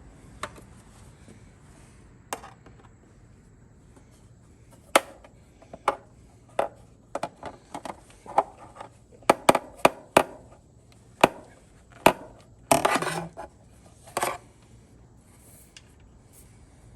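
Small hard parts knocking and clinking as someone digs through a box of parts: a scatter of sharp separate clicks, busiest in the middle, with one longer rattle near the end.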